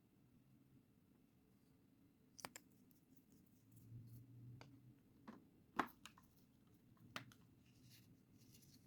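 Faint, scattered clicks and taps from toy pieces being handled, about five sharp ones with the loudest a little past the middle, and light rustling in between.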